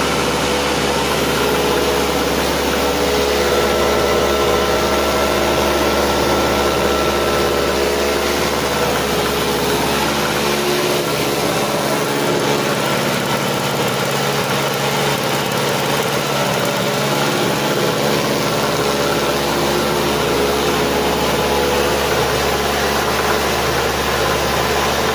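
Small portable gasoline generator running steadily while powering a lit light bulb, the engine freshly restored and fitted with a new carburettor.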